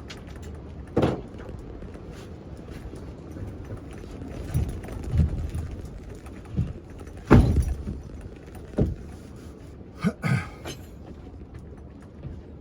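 Irregular knocks and thumps of bed boards being handled and set in place in a van, about eight in all. The loudest comes about seven seconds in, and a quick pair about ten seconds in.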